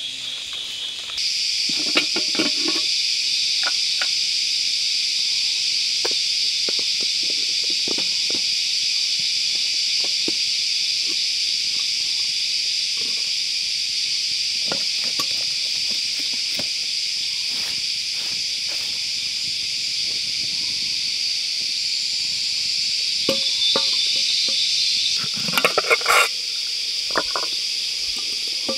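A steady, high-pitched chorus of insects that gets louder and higher about a second in, with scattered light clicks and knocks over it and a busier cluster of knocks near the end.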